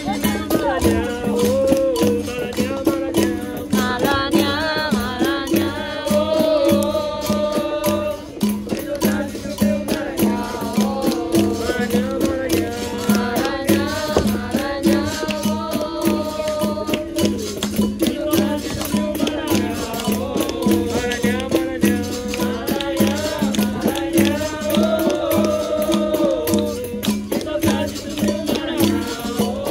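Capoeira roda music: berimbau with caxixi rattle and hand percussion keeping a steady rhythm, under singing that comes in phrases of several seconds.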